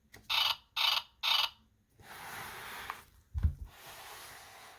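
Camera sound effects played through a children's sound book's small speaker: three quick shutter clicks about half a second apart, then a longer hissing whir. A low thump comes a little after the middle.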